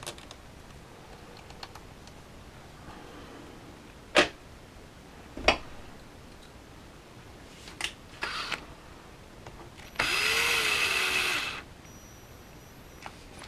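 Two sharp knocks of tools being handled, then lighter clicks, then a small cordless power driver whirring for about a second and a half as it runs a small bolt into an RC truck's aluminum suspension arm.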